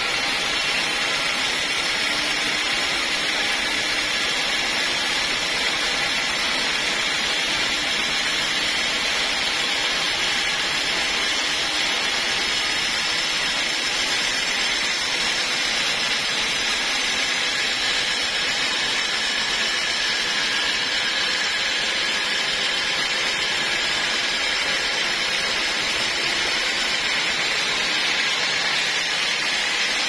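Band sawmill running steadily as it saws a mahogany log into boards, an even, unchanging whir of motor and blade.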